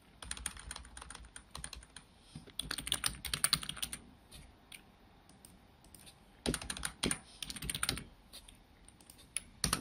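Typing on a computer keyboard: quick runs of key clicks in three bursts, with short pauses between them.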